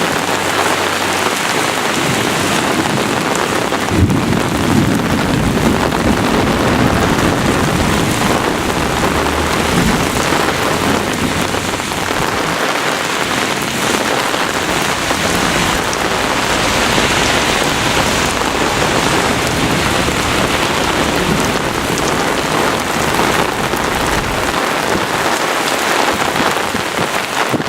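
Heavy rain pouring down in a thunderstorm downpour, a steady dense hiss. From about four seconds in a low rumble comes in under the rain and runs on through most of it.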